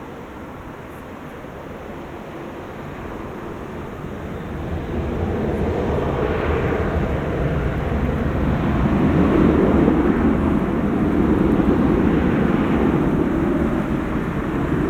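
Jet airliner engines: a steady rushing noise that grows louder over the first several seconds and then holds loud.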